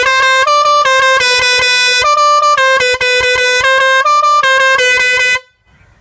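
Multi-trumpet musical pressure horn on a Royal Enfield Bullet, fed from a high-pressure cylinder, blaring a tune. It is loud and switches back and forth between a few notes every half second or so, then cuts off suddenly a little over five seconds in.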